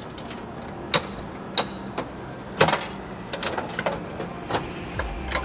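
Coin-operated capsule-toy (gashapon) machine's knob being turned by hand: a string of separate sharp ratcheting clicks and clacks from the mechanism as it dispenses a capsule.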